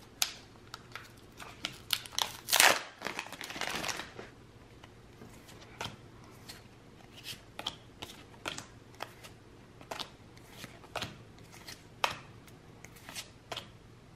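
Foil booster-pack wrapper crinkling for the first few seconds, then Pokémon trading cards flicked over one at a time, a short crisp snap about once or twice a second.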